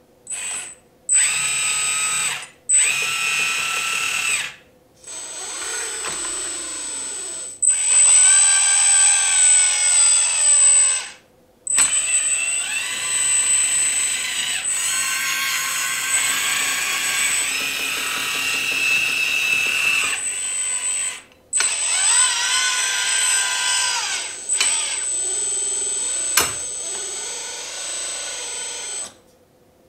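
The hydraulic pump of a 1:16 Huina 336 RC hydraulic excavator whining in repeated runs that start and stop, its pitch rising and falling as the boom, stick and bucket are worked, with a steady high whistle over it. One sharp click near the end.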